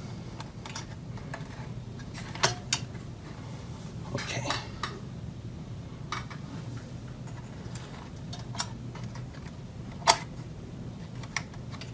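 Scattered sharp clicks and clacks of hard plastic and metal as an AMD Wraith Prism CPU cooler's tension arms are hooked onto the motherboard's mounting hooks, the loudest click about ten seconds in.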